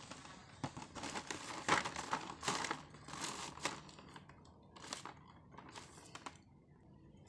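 Clear plastic packaging of a toy playset crinkling and crackling as it is handled, in irregular bursts that are loudest in the first few seconds and thin out near the end.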